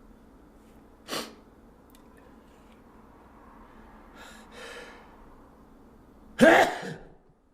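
A man sniffing, then a drawn-in breath, then one loud sneeze about six and a half seconds in, set off by dust from tearing out old carpet.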